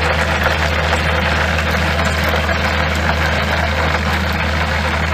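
A cheburek deep-frying in hot oil in the basket of a Kitfort KT-2023 electric deep fryer: a steady sizzle full of fine crackles, with a low hum underneath.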